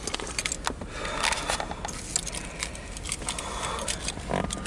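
Car keys jangling on a key ring, with scattered small clicks and rattles of handling inside a car cabin, and a short louder hum near the end.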